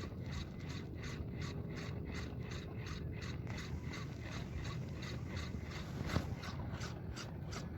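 Fishing reel being cranked to retrieve line: its gears click steadily at about five clicks a second over a low rumble.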